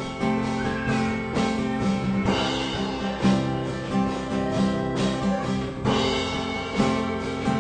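Live band playing an instrumental passage of a Portuguese-language worship song: guitar chords over a steady beat.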